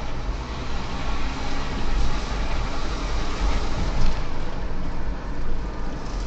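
A car driving, heard from inside the cabin: steady engine and road noise with a strong low rumble.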